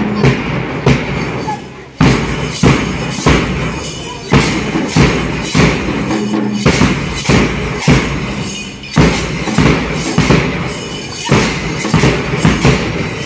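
School percussion band playing a steady beat: bass drums thumping with hand cymbals clashing and a snare drum, about one and a half strokes a second, with two short breaks in the rhythm.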